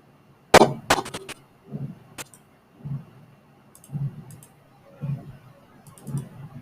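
Computer mouse clicking while editing: a quick cluster of sharp clicks about half a second in, another click near two seconds, and fainter clicks around four and six seconds.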